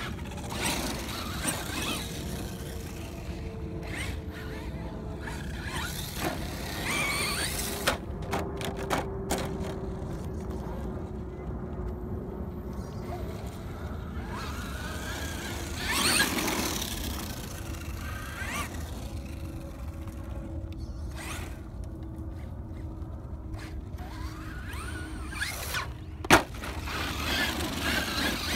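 Traxxas Slash 2WD radio-control monster truck driving: its brushless electric motor and gears whine up and down as it accelerates and slows over crushed-shell dirt, with the loudest rev about halfway through and a sharp knock near the end.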